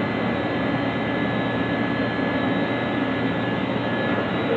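SOITAAB CNC plasma cutter running: a steady hiss with a couple of thin, high whining tones in it.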